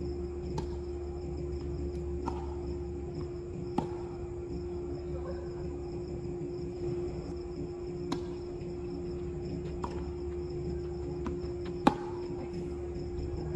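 Tennis balls being struck by rackets and bouncing during a doubles rally: several sharp pops a second or two apart, the loudest near the end from a racket hit close by. Underneath runs a steady hum and a constant high chirping of insects.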